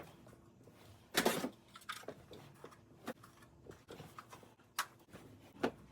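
Packaging being handled during an unboxing: a short rustle about a second in, then scattered light clicks and taps.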